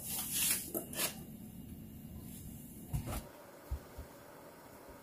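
Salt poured into a pot of water on the stove, heard as short hissing rushes in the first second. A few dull low thumps follow about three and four seconds in.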